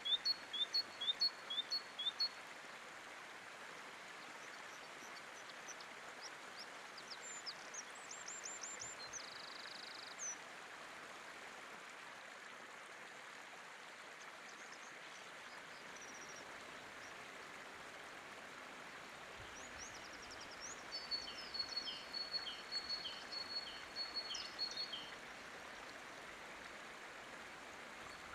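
Steady rush of a shallow river running over rocks, with small songbirds calling: a quick run of repeated chirps at the very start, a few scattered high notes a little later, and a longer song of rapid repeated notes about three-quarters of the way through.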